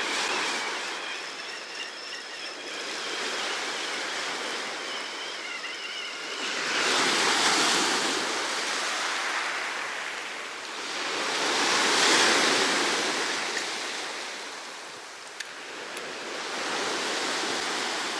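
Small sea waves breaking and washing up a beach, the wash swelling and falling away three times, about every four to five seconds.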